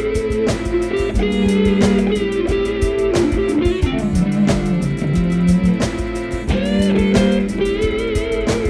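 Music: an instrumental track with electric guitar playing bending lead notes over bass and a steady drum beat.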